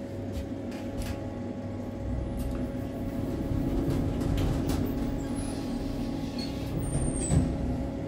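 Glass-walled passenger lift descending: a steady mechanical hum with a low rumble that swells and eases, and a single thump near the end.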